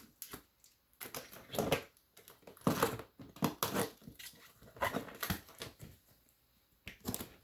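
A cardboard box with plastic corner protectors being handled and worked open: irregular rustling, scraping and crinkling of cardboard and plastic, with a few short clicks and gaps between.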